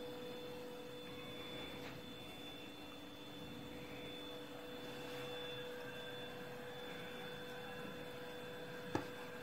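Faint, steady electrical hum made of several held tones, with one short sharp click near the end.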